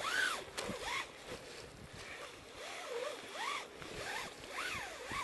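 Climber rappelling down wet rock: short squeaks that rise and fall in pitch, one or two a second and irregular, from the wet rope sliding through the rappel device, with rustling of nylon rain gear.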